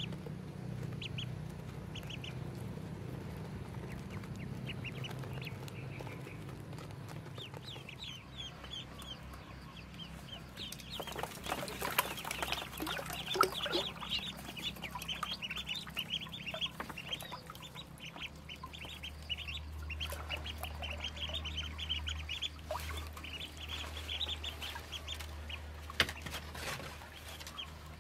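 Ducklings peeping: many short high-pitched peeps, sparse at first and much busier from about ten seconds in. Water splashes now and then as they swim, most around the time the peeping picks up.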